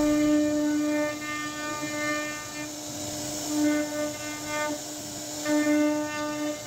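CNC router spindle running at a steady high-pitched whine as its bit carves a relief pattern into a wooden door panel. The whine swells and fades in stretches of a second or two as the cut goes on.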